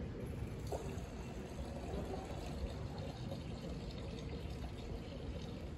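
A steady, even rushing background noise, strongest in the low range, with a few faint ticks.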